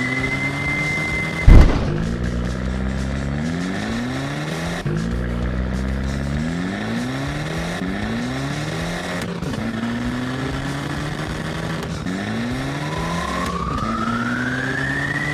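Cartoon monster truck engine sound effect revving up over and over in rising sweeps, with one loud thump about a second and a half in. A high whine glides upward at the start and again near the end.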